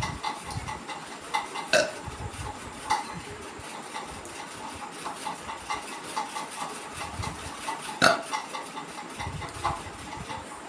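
A woman burping several times, low belches a few seconds apart, brought on by drinking plain water. Two sharp knocks, the loudest sounds, come about two seconds in and about eight seconds in, over a steady light ticking.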